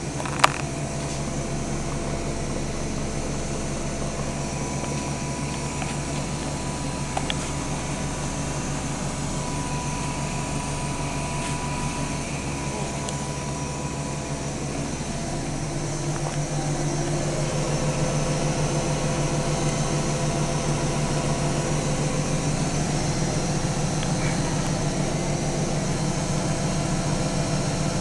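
Washing machine running with a steady mechanical hum, with one sharp click just after the start. About sixteen seconds in, the low hum changes and the running gets a little louder.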